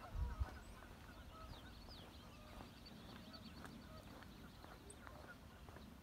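Waterfowl and other marsh birds calling faintly, honk-like calls mixed with many short chirps. A brief low rumble comes right at the start.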